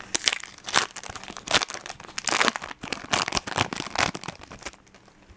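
Foil trading-card pack wrapper being torn open and crinkled, an irregular crackling that stops a little before the end.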